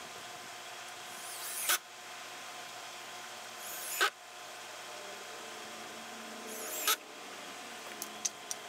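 Cordless drill driving screws in three short runs, each building up over about half a second and stopping sharply, followed by a few light clicks near the end.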